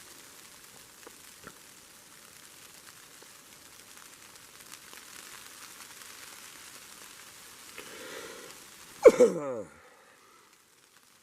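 A faint steady hiss with a few light ticks, then about nine seconds in a person's short loud voiced sigh that falls in pitch, after which the sound drops away.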